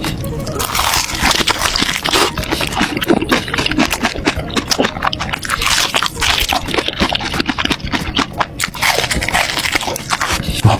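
Close-miked chewing of juicy meat dipped in sauce: wet chewing with many small, closely packed crackles and smacks, loud throughout.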